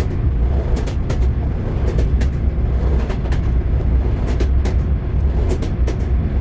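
Train wheels clattering over rail joints: sharp knocks in quick pairs, about one pair a second, over a steady low rumble of the running train.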